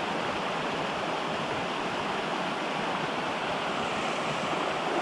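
A small mountain stream flowing steadily over rocks.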